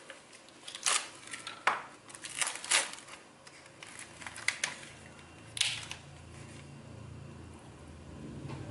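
Plastic film being slit with a knife and peeled off a plastic tray holding a whole raw chicken, giving a string of sharp crinkles and crackles, strongest in the first few seconds, then the tray being handled.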